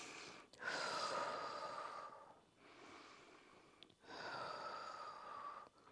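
A woman breathing audibly while holding a seated balance pose: two long breaths about three seconds apart, with a fainter breath between them.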